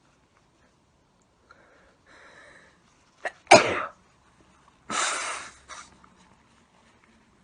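A person sneezing: a soft breathy build-up, then a loud, sudden sneeze about three and a half seconds in. A second, breathier burst follows about a second and a half later.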